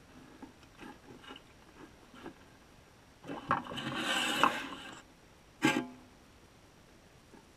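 Underwater knocks and scraping on a baited camera frame as a flapper skate jostles it. A few light clicks come first, then a louder grating rattle lasting about two seconds, then one sharp knock that rings briefly.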